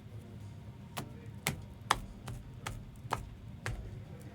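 Trading cards being handled and set down on a table: a string of sharp clicks and taps, about two a second, over a low steady hum.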